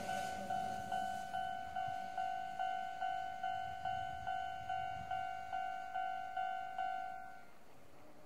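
Railway level-crossing warning bell ringing, an electronic ding repeating evenly about twice a second, then stopping about seven and a half seconds in.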